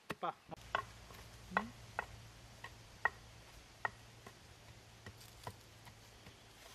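Wooden pestle pounding a dry masala of roasted rice, coriander, cumin, pepper and dried red chillies in a stone mortar: short dull knocks, roughly one to two a second, at an uneven pace.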